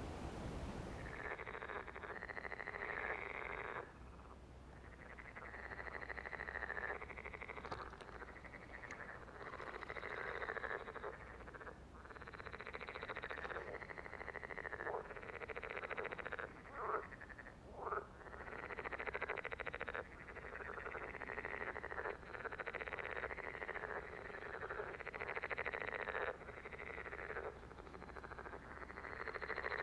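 A chorus of frogs calling in long trilling bouts of a few seconds each, with short breaks between.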